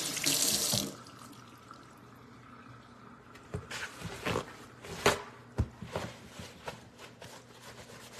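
Kitchen sink tap running, then shut off abruptly about a second in, followed by a few scattered light knocks and clicks.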